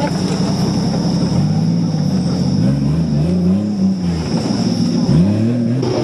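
An off-road 4x4's engine running, then revved up and down several times from about a second and a half in, with a sharp drop and a fresh rise near the end.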